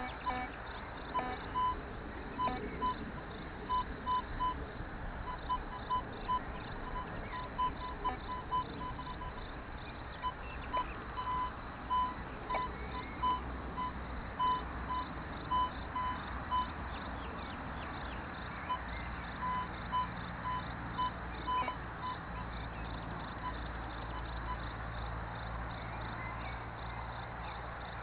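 Metal detector giving short beeps at one pitch, in uneven runs and bursts, while it is being ground-balanced against a mineralised stone. The beeps mostly stop a few seconds before the end.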